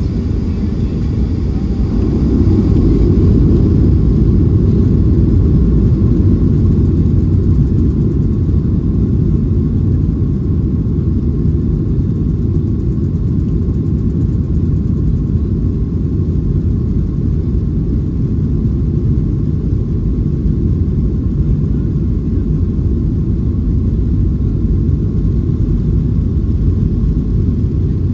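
Boeing 737-800's CFM56-7B engines at low thrust, heard from the cabin over the wing while the airliner taxis onto the runway: a steady low rumble with a faint whine, swelling slightly about two seconds in.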